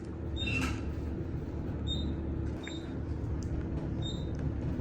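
Elevator car in motion: a steady low hum, with short high beeps every second or less from about two seconds in as it passes floors.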